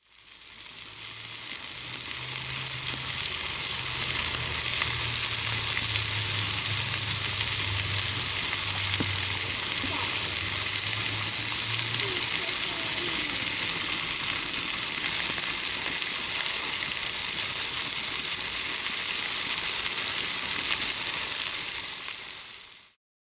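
Oil-marinated pork slices sizzling on a hot flat griddle: a steady, high frying hiss that swells in over the first few seconds and cuts off just before the end. A low hum runs under it through the first half.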